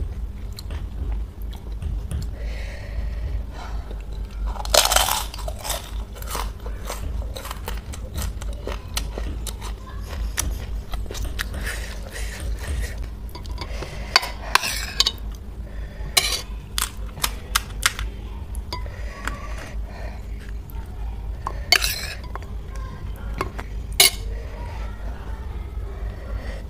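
Eating panipuri at close range: utensils clinking against dishes and crisp puri shells crunching, with scattered sharp clicks, a few of them louder, over a steady low hum.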